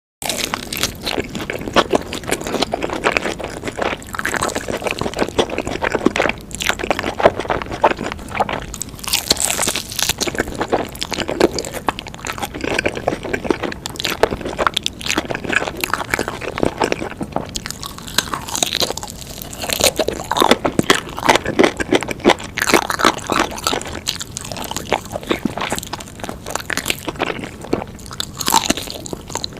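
Close-miked eating of crunchy food: a person biting and chewing, with dense, irregular crunches throughout.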